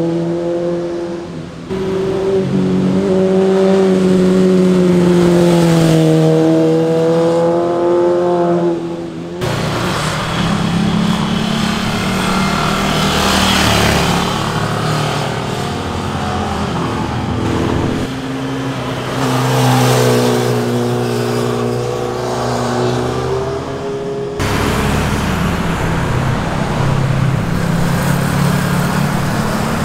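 Sport motorcycles passing one after another, the engine note rising as they accelerate and falling as they shift or back off, with abrupt changes from one pass to the next.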